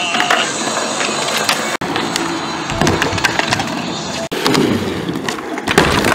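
Skateboards on concrete: wheels rolling and wooden decks clacking and slapping on the ground, with sharp knocks about three seconds in and again near the end.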